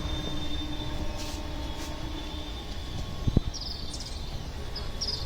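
EMU local train running with a steady low rumble and a faint steady hum, with a single knock about three seconds in and a few short high chirps in the second half.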